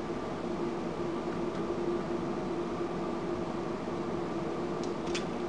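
Steady mechanical hum with a constant tone, and a couple of light clicks near the end.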